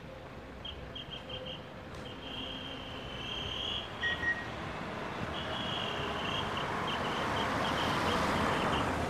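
A car approaching along the road, its tyre and engine noise growing steadily louder through the second half. Over it, a bird chirps in quick runs of high notes.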